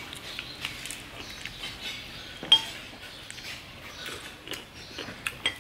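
Spoon clinking against a bowl during eating: a run of small light clinks, with one sharp ringing clink about two and a half seconds in.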